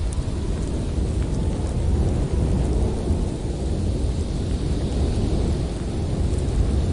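Blizzard wind blowing hard and steadily, a deep rumbling rush with a few faint ticks over it.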